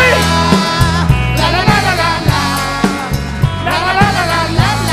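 A pop-rock song: a sung melody over sustained bass notes and a steady drum beat.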